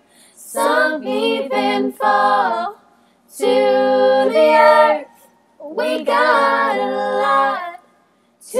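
A woman singing unaccompanied into a handheld microphone: three long sustained phrases with short breaths between them, and a new phrase starting near the end.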